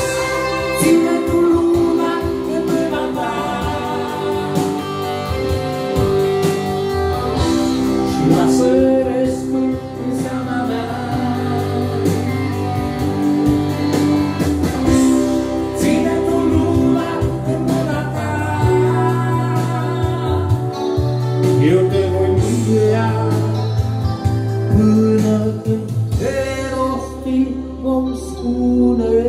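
A rock band playing live, an instrumental passage of a song: electric guitar and keyboards over a steady bass line.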